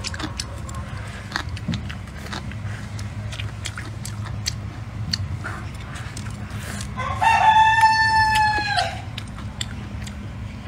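A rooster crows once about seven seconds in, a long call of nearly two seconds that drops slightly in pitch at the end. Close-up chewing and small clicking sounds of eating run underneath.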